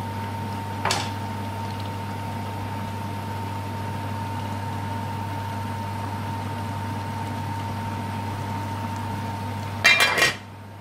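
A pot of curry simmering on a gas stove, with a steady bubbling hiss over a constant low hum and a light knock about a second in. Near the end an aluminium lid clatters onto the aluminium pot with a few quick metallic clanks.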